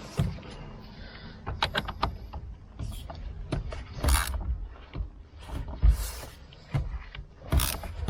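Irregular clicks and knocks of tools and metal parts being handled while the steering wheel's centre bolt is fitted and tightened, with a quick run of several clicks about two seconds in and a few louder thumps later.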